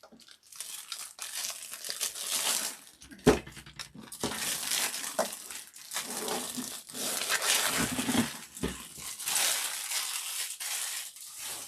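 Packaging crinkling and rustling as it is handled and pulled away from a newly unboxed cutting machine, in bouts with short pauses. There is a knock about three seconds in and a couple of soft thuds later on.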